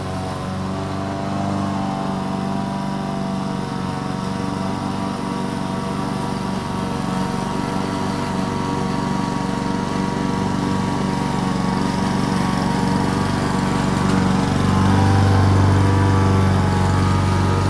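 Lawn mower engine running steadily while cutting grass, its sound growing louder toward the end as the mower comes closer.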